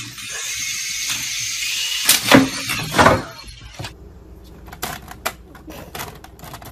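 A steady hiss with two loud knocks about two and three seconds in, then a string of short, sharp clicks and taps as a cat's paw paws through plastic makeup containers and bottles in a drawer, knocking them against each other.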